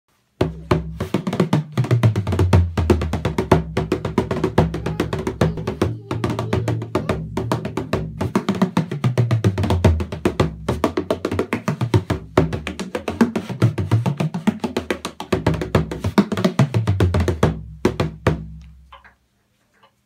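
An 18-inch tunable Paul McCauley bodhrán played in a fast, continuous rhythm of quick strokes, its deep tone sliding up and down as the player's hand presses the back of the skin. The playing stops near the end.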